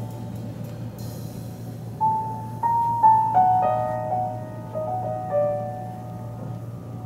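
A vinyl record playing over Magnepan 1.7 planar-magnetic loudspeakers: a few piano notes, beginning about two seconds in, over a steady low hum.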